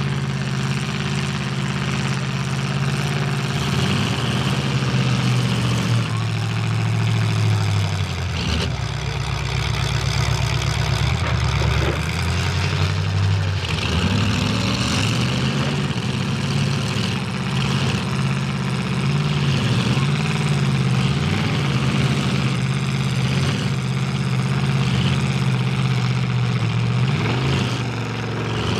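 Demolition derby car engines idling on the track, with revs rising and falling now and then.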